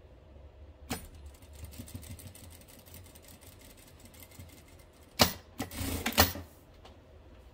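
Sewing machine stitching a repair seam in pyjama-pant knit fabric: a fast, even run of needle clicks starting about a second in, then a few louder clacks and a short clatter about five seconds in as the stitching ends.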